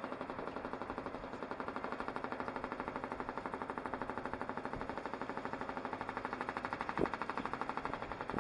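A machine running with a fast, even pulse of about ten beats a second over a steady low hum; a single knock about seven seconds in.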